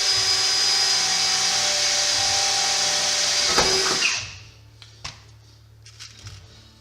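Electric drill running steadily for about four seconds as it bores a rivet hole through layered sheet-steel body panels, with a brief dip in pitch just before it stops.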